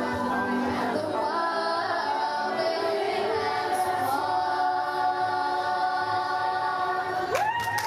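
Youth glee choir singing in harmony, holding long chords, with a solo voice over a microphone. Near the end the voices slide up into a high final note.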